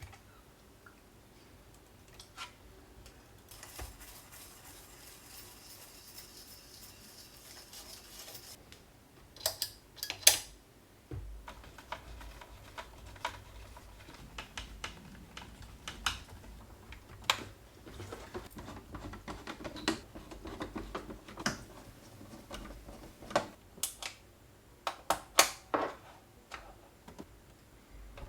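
Hands working on small hard plastic and metal parts at a workbench: scattered sharp clicks and knocks, with a run of rapid fine ticking for a few seconds early on and a cluster of loud clicks near the end.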